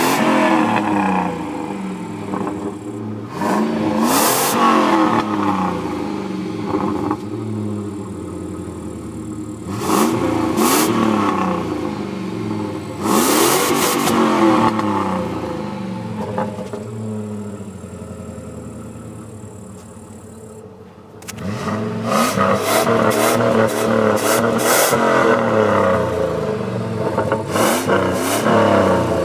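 Jeep Grand Cherokee's 4.7-litre V8 on its stock exhaust, revved in repeated blips with the engine falling back toward idle between them. It settles to a steadier idle for a few seconds past the middle, then a quick run of revs follows one after another to the end.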